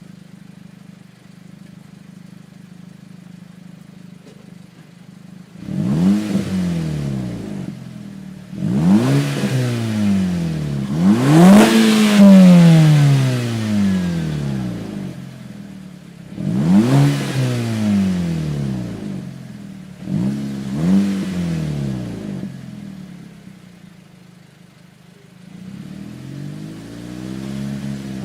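Stock Volkswagen GTI Mk5 2.0-litre turbocharged four-cylinder idling, then revved about six times, each rev rising and falling back to idle. The longest and loudest rev comes around the middle, and a smaller one comes near the end.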